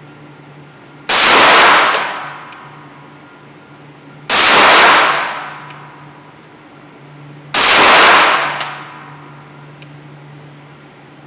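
Three pistol shots fired singly, about three seconds apart, each followed by a long ringing decay and a few light clinks. A steady low hum runs underneath.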